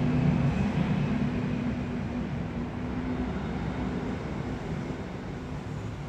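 A motor vehicle's engine humming steadily with a low drone, loudest about half a second in and slowly fading.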